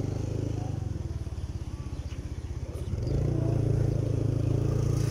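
Motorcycle engine running, a steady low drone with a fast pulse, growing louder about three seconds in.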